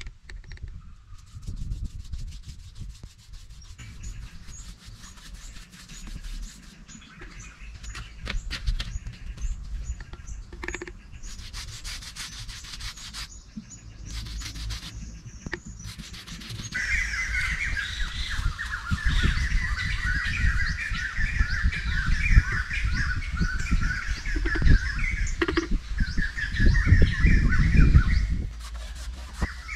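A brush rubbing and scraping red paint onto a rough cement surface, with scattered clicks and taps. From a little past halfway, birds chirp and sing steadily over it.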